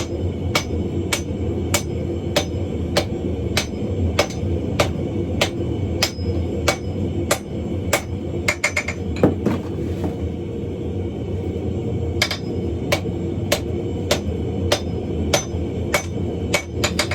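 Hand hammer striking hot coil-spring steel on an anvil in a steady rhythm, a blow about every half second or a little more, over a steady low rumble. About eight seconds in comes a quick flurry of light taps, then a pause of about two seconds before the steady blows resume.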